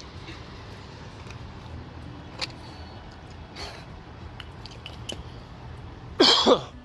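A girl's single loud, harsh cough near the end, starting sharply and dropping in pitch, over a steady low rumble.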